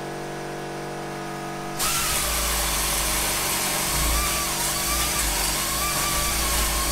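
Handheld pneumatic nibbler cutting through steel plate along a curve, starting about two seconds in with a loud, steady buzzing noise. Before it, a steady hum is heard.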